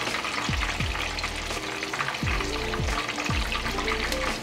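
Floured chicken pieces deep-frying in hot oil in a pot, about 350°F: steady sizzling with a fine crackle.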